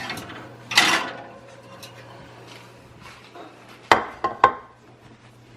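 Kitchen dishes and food containers being handled: a scraping clatter about a second in, then three sharp clinks close together near the end.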